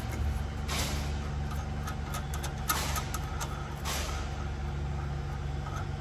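Toyota forklift engine idling steadily, with a few short noisy bursts over it about one, three and four seconds in.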